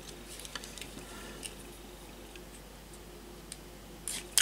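Faint scattered clicks and small taps as a wired multi-pin microphone plug is handled in the fingers, with a louder cluster of sharp clicks near the end.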